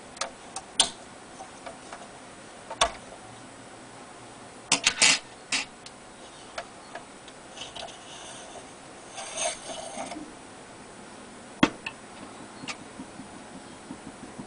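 Scattered sharp clicks and knocks of hard plastic parts handled by hand, as the bobbin is taken off the flyer of an electric spinning wheel and set down. A quick cluster of knocks comes about five seconds in, and a short rustle about nine seconds in.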